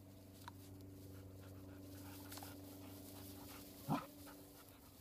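Dogs panting and whimpering, with one short, loud whine about four seconds in.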